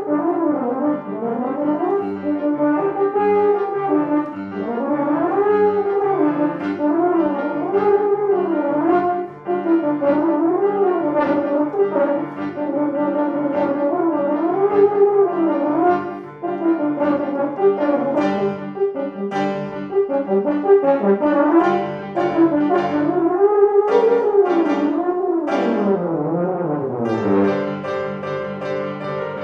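Euphonium playing fast melodic runs that climb and fall in quick arcs, with piano accompaniment. Near the end the euphonium line sweeps down low and the piano carries on.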